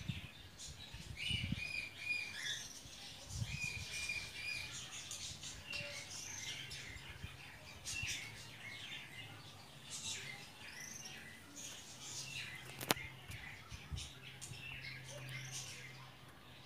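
Small songbirds chirping and singing over and over, in short quick notes with a few held whistled notes. A few soft low thumps come in, and there is one sharp click about thirteen seconds in.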